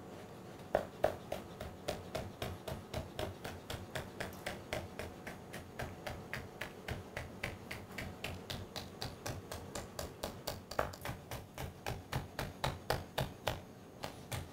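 Chef's knife finely chopping red chillies on a white chopping board: a steady run of blade taps on the board, about three to four a second.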